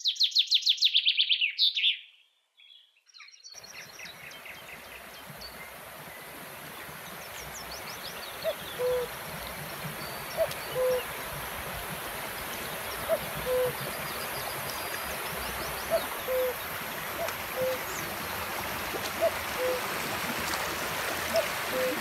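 A shallow stream rushing steadily over rocks, with a bird's low two-note hooting call repeating about every two to three seconds. It opens with a brief rapid high-pitched bird trill, then a moment of silence before the water comes in.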